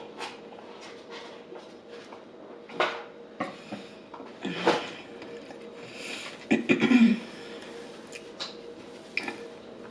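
Close-up eating sounds: chewing and handling of food, with scattered clicks and knocks and the loudest cluster about seven seconds in.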